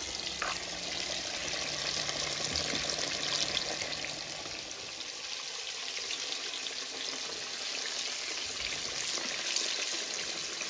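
Pieces of flour-coated, seasoned fish frying in hot oil, a steady sizzle with fine crackling, as the fish browns.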